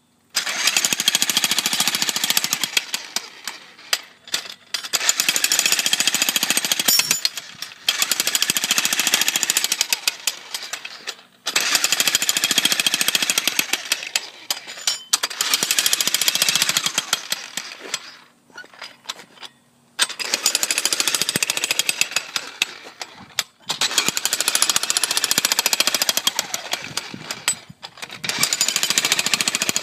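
Corded electric jackhammer breaking up concrete with rapid hammering. It comes in runs of a few seconds each, with short pauses between them.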